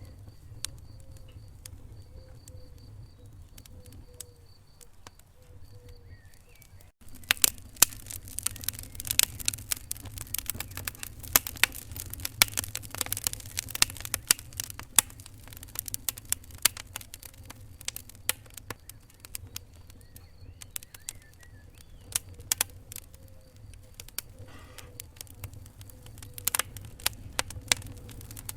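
Wood fire crackling in a fireplace: irregular sharp pops and snaps over a low steady rumble of flames. The first few seconds are quieter with few pops; after a brief break about seven seconds in, the pops come thick and fast.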